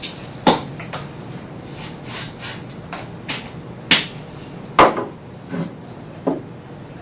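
Irregular sharp metallic clicks and knocks, about ten of them with a few short scraping hisses, from a hand thread tap and its wrench being worked into a drilled hole to cut threads for a Time-Sert insert.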